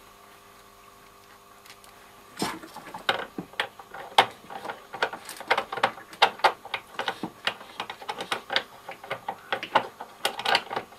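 Irregular clicks and knocks of hands handling a reassembled Ferrograph Series 4 tape recorder, starting about two and a half seconds in and coming several times a second.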